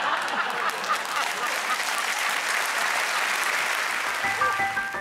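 Studio audience applauding. About four seconds in, the clapping fades and bell-like music tones come in.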